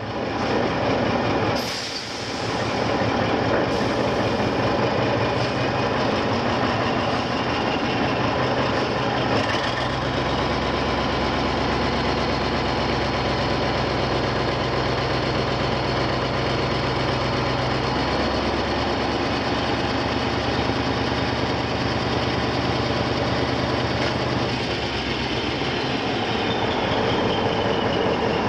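Heavy diesel engine of a Demag AC 335 all-terrain crane running steadily, its low note shifting about ten seconds in and again a little later. A brief noisy burst comes near the start, and a faint falling whine near the end.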